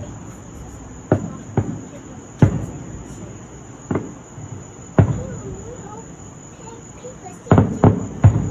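Fireworks shells bursting with sharp booms, about eight in all and the last three in quick succession near the end, over the steady chirping of crickets.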